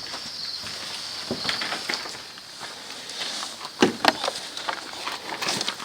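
Footsteps and rustling: scattered short crunches, with two sharper clicks about four seconds in, over a steady high-pitched background hum.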